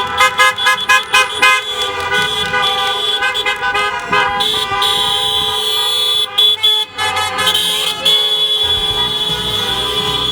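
Several car horns honking together in a parade: a run of quick short toots, then longer held blasts that overlap.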